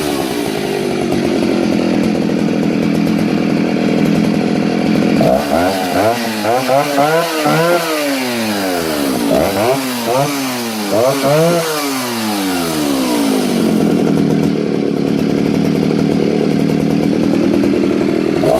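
Stihl 08S 56cc two-stroke chainsaw engine running: it idles steadily, then from about five seconds in is blipped to high revs about half a dozen times in quick succession, each time dropping straight back, before settling to a steady idle again; it starts to rev once more right at the end. The engine is responsive and returns to idle quickly.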